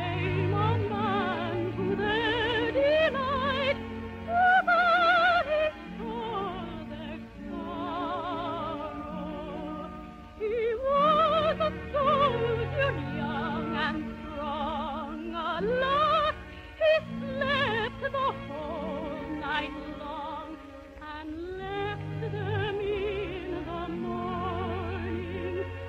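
Operetta singing with a wide vibrato over an orchestra accompaniment, on an old radio transcription with the top end cut off.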